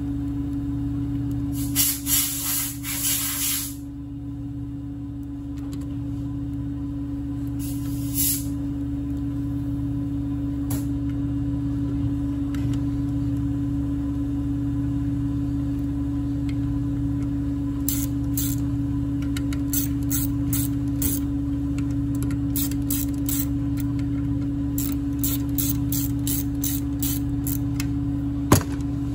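A ratchet wrench clicking, in a couple of short runs early on and then in scattered single clicks through the second half, as clutch pressure-plate bolts are run down. A steady low hum underneath is the loudest sound.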